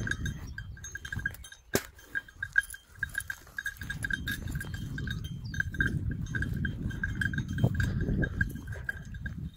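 Small bell on a hunting hound's collar, ringing in quick, uneven pulses as the dog moves through the brush. A low rumbling noise joins it from about halfway through.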